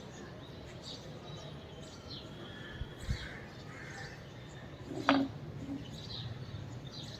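Small birds chirping in short repeated calls over a steady low background noise, with a dull thump about three seconds in and a sharp knock a little after five seconds.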